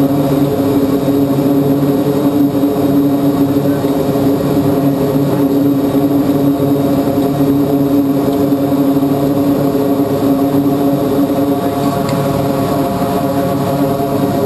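A C-2A Greyhound's twin Allison T56 turboprop engines and propellers running steadily, heard from inside the cockpit as a constant, loud drone.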